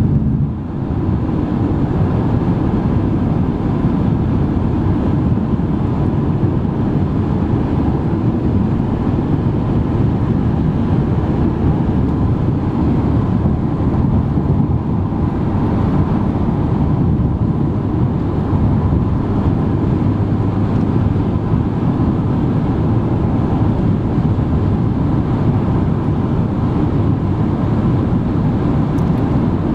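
Steady road and wind noise of a car travelling at highway speed, a low even rush of tyres and air with no changes.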